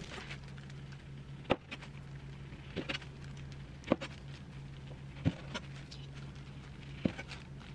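About five light, sharp clicks and knocks of kitchen handling, spaced a second or so apart, over a steady low hum.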